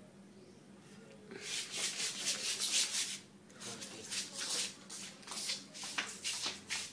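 Sweeping strokes on a wet hard floor. A fast run of scrapes starts about a second and a half in, then slows to separate strokes.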